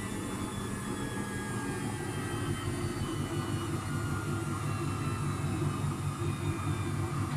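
Luxor WM 1042 washing machine's motor and drum running down after spin: a steady low hum and rumble, with a motor whine that falls slowly in pitch.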